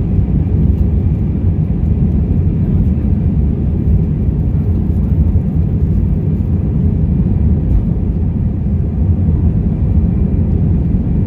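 Airbus A319 cabin noise on the ground: a steady low rumble from the CFM56 engines at low thrust as the airliner taxis, with a faint steady high whine above it.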